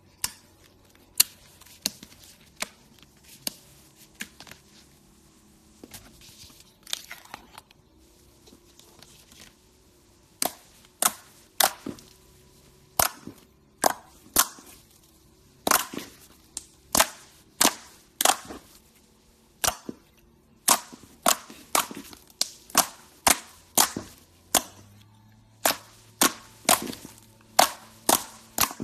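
Slime being squeezed and folded, its trapped air popping in sharp clicks. The pops are sparse at first, then come about one to two a second from about ten seconds in.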